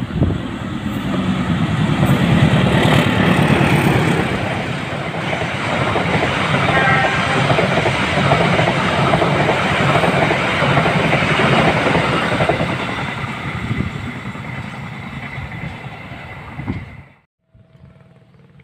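Passenger train hauled by a diesel locomotive passing close at speed: the locomotive's loud rumble peaks in the first few seconds, then the carriages' wheels on the rails keep up a steady rush and clatter. It cuts off suddenly about seventeen seconds in.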